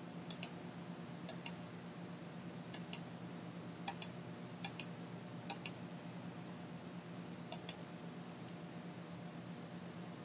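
Computer mouse button clicking as drop-down menus are worked: seven quick double clicks spread over about eight seconds, over a faint steady low hum.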